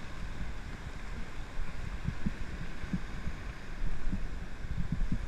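Shallow surf washing and foaming around rocks, a steady hiss of water, with irregular low thumps and rumble on the microphone.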